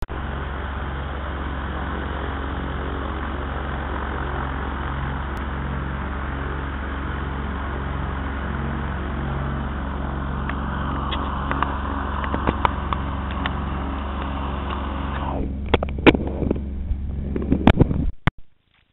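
Rotax 912 four-cylinder engine of an ultralight trike running steadily, with a constant low hum. Over the last few seconds sharp clicks and knocks break in, and the sound cuts off suddenly just before the end.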